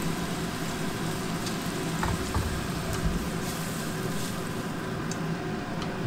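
Onion and bell pepper strips sizzling steadily in oil in a nonstick pan as they are stir-fried with chopsticks, with a few light clicks.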